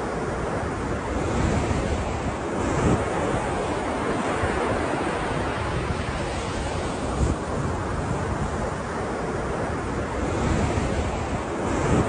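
Ocean surf: waves breaking and washing in as a continuous rushing noise that swells and eases, with a few brief louder surges. Wind buffets the microphone and adds a low rumble.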